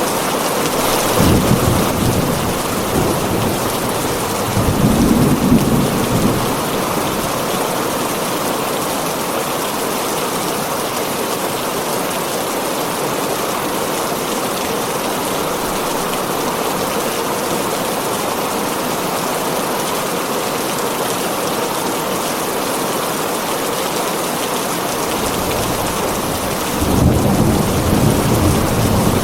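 Heavy rain drumming steadily on a tin roof. Low rolls of thunder rumble about a second in, again around five seconds in, and once more near the end.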